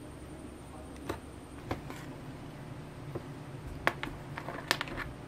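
Small sharp clicks and taps of 3D-printed plastic suspension parts being handled and fitted together, a few spaced out and then a quick cluster near the end, the sharpest about four seconds in, over a steady low hum.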